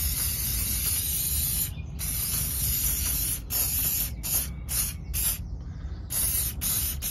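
Aerosol can of engine brightener spraying in hissing bursts: two long sprays, then four short quick squirts around the middle, then another long spray near the end.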